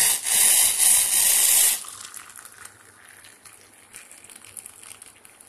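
Just-boiled water poured from a steel pan into the top chamber of a stainless-steel South Indian coffee filter onto the ground coffee. A loud gushing splash lasts for about two seconds, then a much quieter pour with small splashes follows.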